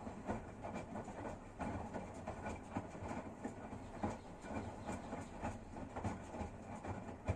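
Washing machine running, a steady low hum under frequent, irregular knocks and clatter from the turning drum.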